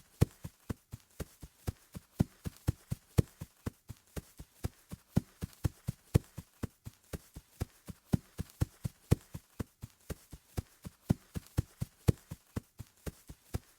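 Footsteps of a person running on grass: a steady, quick run of footfalls, about three to four a second, with no let-up.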